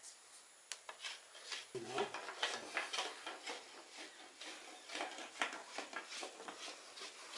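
A brass rod rubbed hard along a scraped cinnamon stem, a fast, irregular run of scraping strokes that thickens about two seconds in. The rubbing loosens the inner bark so it can be peeled off in one piece.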